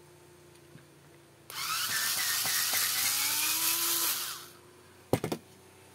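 Electric drill-driver spinning for about three seconds as it undoes the screws holding an RC car's wheel, its pitch creeping up before it winds down, followed by a short sharp click.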